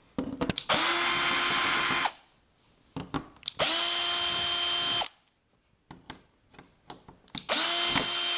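Power drill with a Phillips bit backing screws out of an LED TV's rear cover: three runs of steady whirring, each spinning up quickly and lasting a second or so. Small clicks and taps fall between them.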